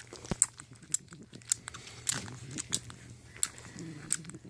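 Newborn bulldog puppies suckling, making irregular wet smacking and clicking sounds as they nurse.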